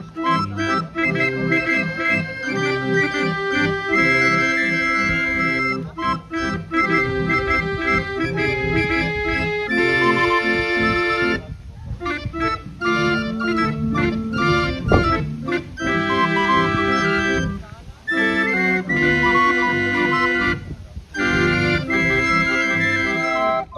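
Hand-cranked L. Bacigalupo (Berlin) barrel organ playing a tune on its pipes, with a few brief breaks between phrases.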